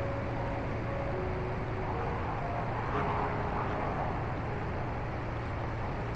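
Narrowboat engine running steadily under way, a continuous low hum, with a faint melody of background music over it.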